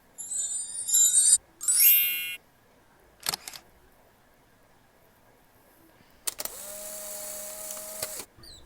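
A string of short stock sound effects played back one after another from a video-editing app's sound library, separated by silent gaps. First about a second of high chirping and a short buzzy tone, then a brief click about three seconds in. Last, about two seconds of hiss with a steady tone, starting about six seconds in.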